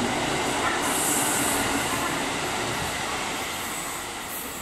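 Three-car KiHa 85 series diesel railcar set passing through a station without stopping: the engine and wheels on the rails make a steady loud rumble that slowly fades as the last car pulls away. A brief high hiss comes about a second in.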